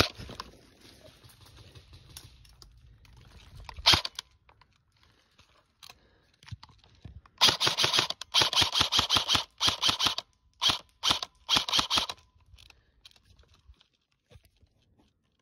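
Airsoft rifle firing: two sharp single cracks in the first four seconds, then rapid bursts of shots for about five seconds, the last few bursts short with gaps between them.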